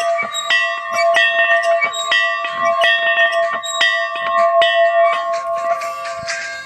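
A large bell rung over and over, struck about twice a second, each stroke ringing on into the next.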